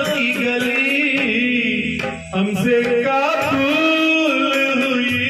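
A man singing long held notes of an old Hindi film song with musical accompaniment, with a brief break about two seconds in.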